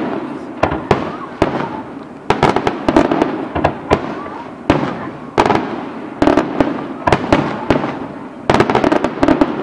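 Aerial firework shells bursting in quick salvos: sharp bangs, sometimes several a second, each trailing off in a rolling rumble.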